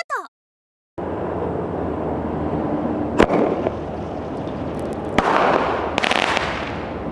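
Toy aerial shell firework: a sharp pop about three seconds in as the round shell is launched, then about two seconds later the burst. The burst is followed by a second of hissing and crackling as the stars and sound stars open.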